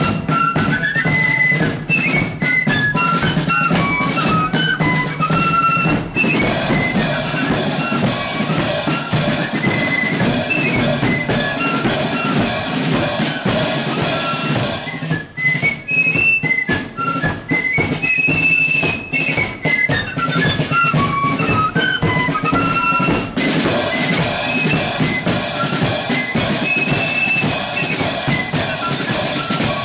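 Marching flute band playing a tune on flutes over a steady bass drum and side drums. The crisp side-drum and cymbal playing comes in about six seconds in, drops away around the middle, and returns a few seconds before the end.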